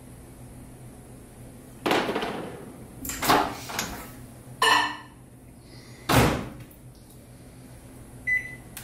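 A microwave oven being loaded. The door opens with a clunk, a glass cup of maple syrup clinks as it is set inside, and the door shuts with a loud thump about six seconds in. A short keypad beep sounds near the end.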